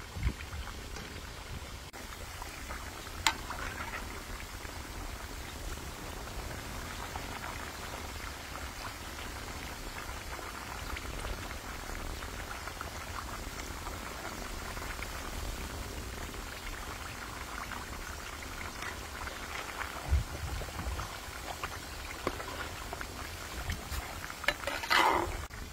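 Hot oil bubbling and sizzling steadily around a whole chicken deep-frying in a large wok, with a sharp click about three seconds in. Near the end, louder crackling as a metal spatula turns the chicken in the oil.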